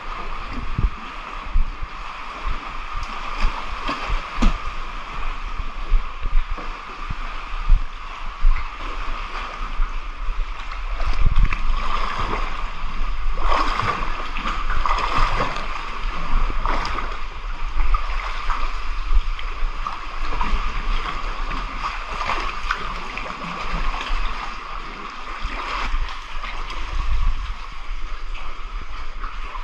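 Water sloshing and splashing right against an action camera held at the surface while swimming, with irregular knocks and thumps of the water and the housing.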